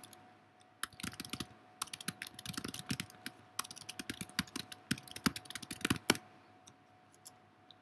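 Typing on a computer keyboard: a quick run of key clicks for about five seconds, ending in one sharper keystroke, then a few scattered clicks. A faint steady hum lies underneath.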